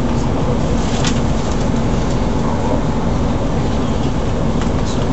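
Steady rumble of a passenger train running along the line, heard from inside the carriage, with a low steady hum. A few light clicks come about a second in and near the end.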